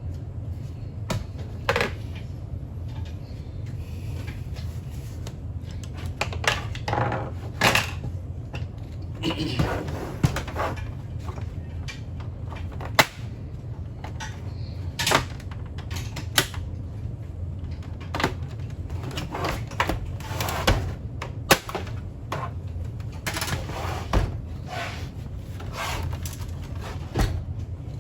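Scattered clicks, knocks and light clatter of hand work on a coffee machine's casing and parts, several sharp knocks standing out, over a steady low hum.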